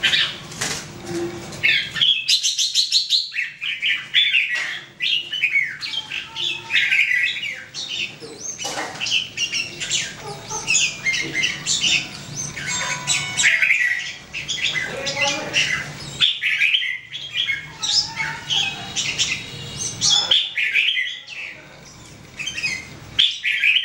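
Red-whiskered bulbul singing: a long run of quick, chattering whistled phrases, broken by a few short pauses. It is the song of a male in wing-spreading courtship display.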